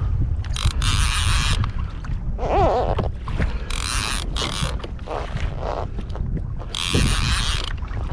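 Wind rumbling on the microphone over a kayak on open water, with three short hissing splashes of water about three seconds apart and a brief wavering creak a little before the middle.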